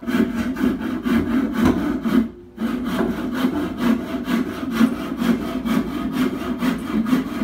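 Hand screwdriver driving a screw into a chipboard panel: a rhythmic grinding rasp with each twist, about three or four strokes a second, with a short pause about two seconds in.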